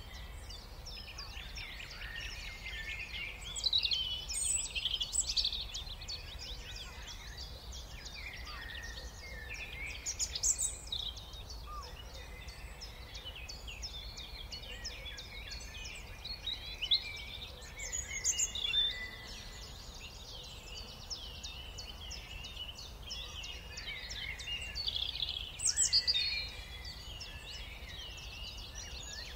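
Chorus of small songbirds chirping, many overlapping chirps and trills at once, with several louder spells, over a steady low background rumble.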